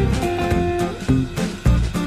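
Background music: an upbeat guitar-led tune with a steady beat.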